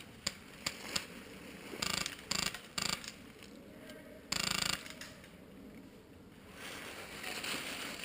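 Airsoft rifle firing: a few single clicks, then three short rapid bursts about two seconds in and a longer, louder burst just past the middle.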